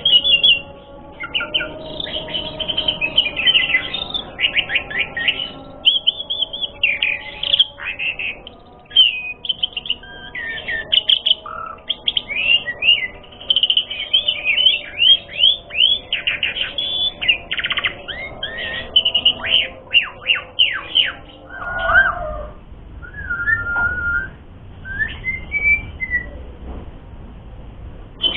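Asian pied starling (jalak suren) singing a long, fast, unbroken run of varied chirps and whistles. About 21 seconds in, the song thins to a few scattered calls.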